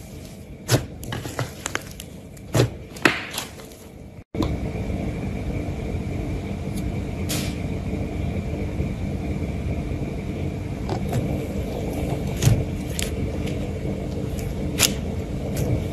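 Hands squeezing and pressing slime, giving a series of sticky clicks and pops. After a sudden cut about four seconds in, the squishing goes on more sparsely over a louder steady low rumble.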